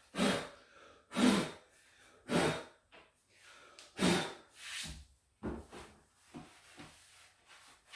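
A melamine-foam cleaning pad (magic eraser) scrubbing pencil marks off a wall in separate swishing strokes, roughly one a second. The strokes are louder at first and grow fainter and shorter near the end.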